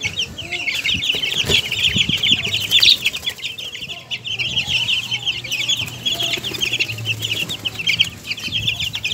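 Young chicks peeping nonstop, many short, high, falling cheeps overlapping one another, with a few knocks about one and a half and three seconds in.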